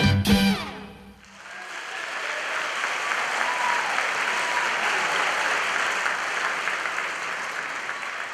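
Salsa music ends on a final hit in the first half-second, then an audience applauds, the clapping swelling within about a second and a half and holding steady before easing off slightly near the end.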